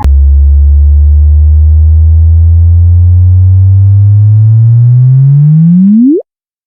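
A sonified space signal: a loud low hum with overtones that rises in pitch, slowly at first and then in a steep upward sweep. It cuts off suddenly about six seconds in.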